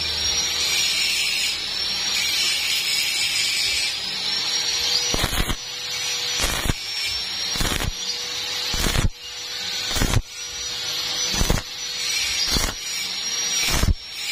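Stick welding arc crackling and hissing on thin steel tube. From about five seconds in, the arc is broken and restruck about once a second, each break marked by a sharp crack, the stop-start rhythm used to keep thin metal from burning through.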